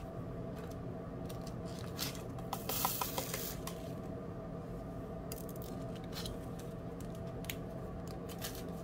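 Light clicks and a brief rustle from handling a small plastic container of rhinestone drills and the canvas's clear plastic cover film, over a faint steady hum.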